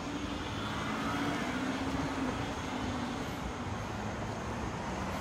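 Distant engine drone over outdoor street noise: a low steady hum that swells slightly about a second in and fades after about three seconds.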